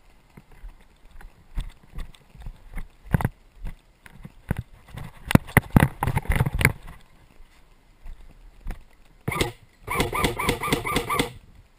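Scattered knocks and clatter, thickest a little past the middle, then about two seconds of a fast, even mechanical rattle with a buzzing tone near the end.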